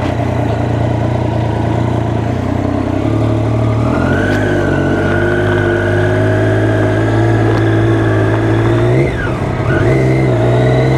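Triumph Daytona 675R's three-cylinder engine running at low, steady revs. The pitch steps up a little about four seconds in, then drops sharply and climbs back about nine seconds in.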